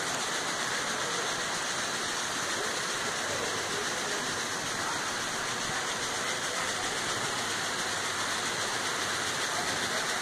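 Steady rush of water running into a koi pond.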